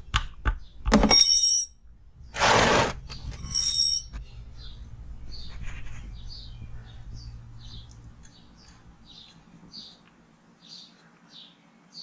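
Metal clicks and clanks with a high ringing tone as a wrench works the motorcycle's oil drain bolt, then a small bird chirping over and over in short high chirps.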